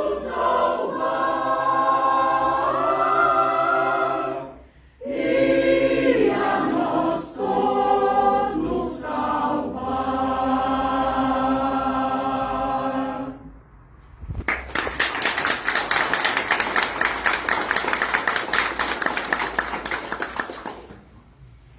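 Choir singing a Christmas song, ending about 13 seconds in on a held chord. About a second later an audience starts applauding and keeps clapping for several seconds.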